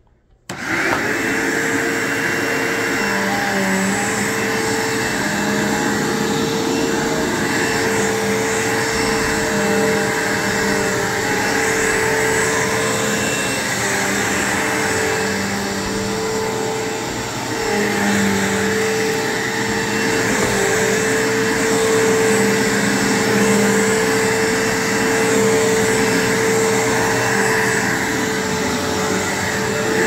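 Bissell PowerForce Bagged upright vacuum cleaner switched on about half a second in, its motor spinning up to a steady hum, then running while it is pushed back and forth over carpet, the sound shifting a little with each stroke.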